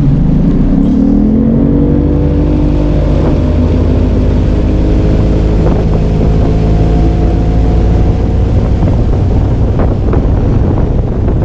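Bass boat's outboard motor throttling up, its pitch rising over the first two or three seconds, then running steadily at speed across the lake. A few sharp knocks come near the end.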